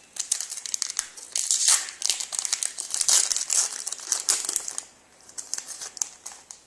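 Trading-card pack wrapper being torn open and crinkled by hand, in quick crackling bursts for about five seconds, then only a few faint rustles.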